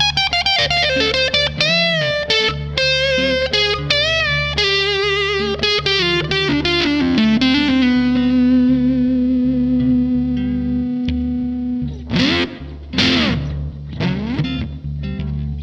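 Electric guitar played through a fuzz pedal: quick single-note lead lines with bends and vibrato, then one long sustained note. Near the end come a couple of sweeping, bright swells before more notes.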